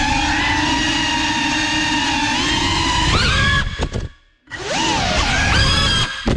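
GEPRC Cinelog 35 cinewhoop's brushless motors and ducted propellers whining, the pitch rising and falling with the throttle. About four seconds in the throttle is cut and the whine nearly drops out for a moment before climbing back in.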